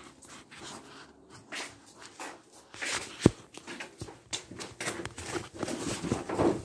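Footsteps and the rustle and knock of a phone being carried against clothing, with one sharp knock about three seconds in.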